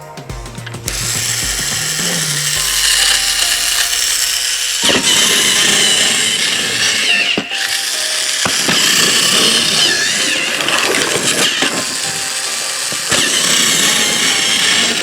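A small motor whirring steadily from about a second in, with music underneath.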